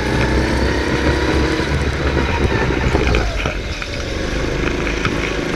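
Go-kart driven at speed, heard from the driver's seat: its motor drones steadily under a rushing noise.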